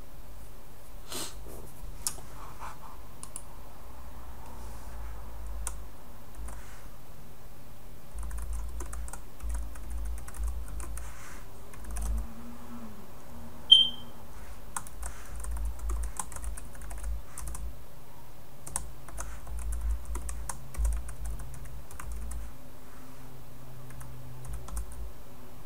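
Typing on a computer keyboard: irregular runs of quick key clicks, thickest through the middle of the stretch. About halfway through there is a single short, high-pitched beep, the loudest sound.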